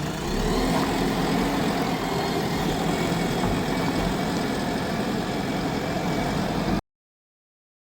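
JCB backhoe loader's diesel engine running steadily, cutting off suddenly to dead silence near the end.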